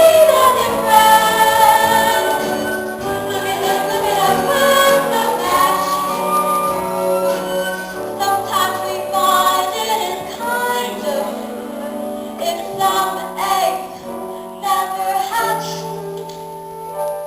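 A musical-theatre song performed live: voices singing over instrumental accompaniment.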